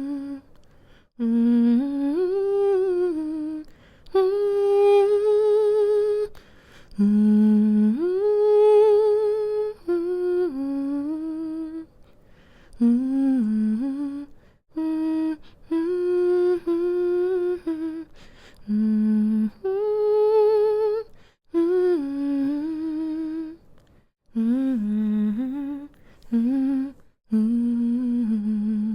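A woman humming a slow, soothing lullaby melody to lull a baby to sleep, in short phrases of held notes with a gentle vibrato, broken by brief pauses for breath.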